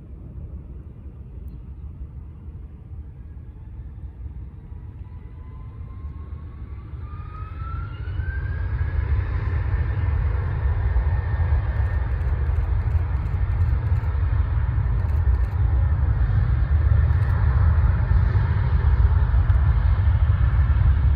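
Jet airliner passing close by: its engine noise grows louder over several seconds, with a whine rising in pitch, then settles into a steady loud rumble.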